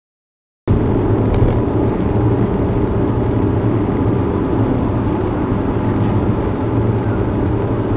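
Steady engine and road noise of a moving car. It starts abruptly just under a second in.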